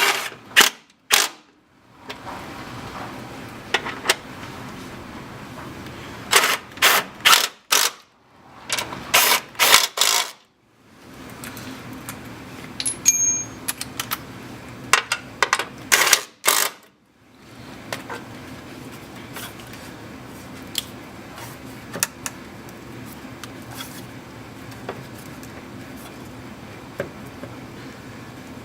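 Bursts of sharp metallic clicks and knocks, several in quick succession, as an Odyssey battery is fitted into a fender-mounted battery tray and its hold-down hardware worked on. Lighter scattered ticks follow over a low steady hum.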